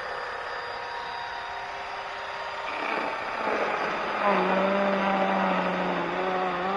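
Mini 24V battery chainsaw's electric motor running with a steady whine, then biting into a thick log about three seconds in. It gets louder and rougher, and its pitch drops and wavers as the motor comes under load.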